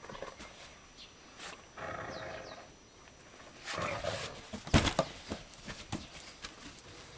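Young dogs playing tug-of-war with a rope toy: rough growls and scuffling around two and four seconds in, and one sharp thump about five seconds in that is the loudest sound.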